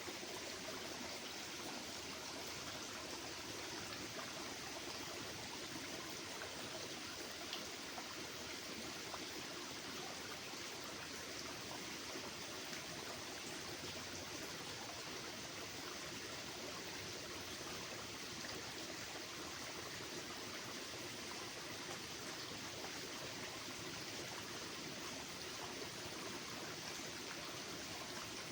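Steady, even rushing hiss like running water, with no clear bird calls standing out.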